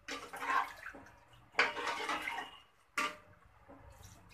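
Spoon stirring chana dal through water in an aluminium pressure cooker pot: a few sloshing swirls, with one short sharp tap about three seconds in.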